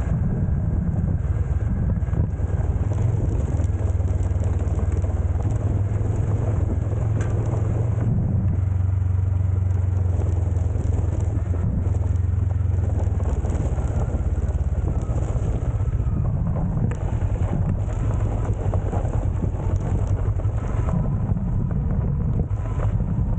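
Motorcycle engine running steadily under way on a gravel track, a low drone that is heavier for several seconds in the first half, over an even hiss of tyres on loose gravel.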